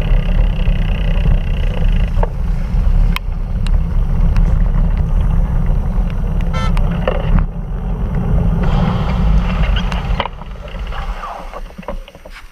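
Wind rumble and wet road hiss on a bicycle descending fast in the rain, with scattered clicks; it eases off over the last two seconds.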